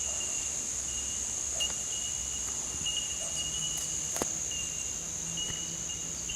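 Insects droning steadily at a high pitch, with a second, lower trill starting and stopping every second or so, and a sharp click about four seconds in.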